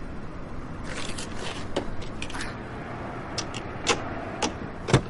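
A series of sharp clicks, scrapes and knocks over a steady low rumble; the loudest knock comes near the end.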